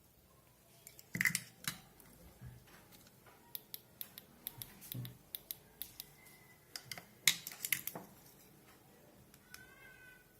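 A series of irregular sharp clicks and taps, loudest about a second in and again about seven seconds in, with a brief high chirp near the end.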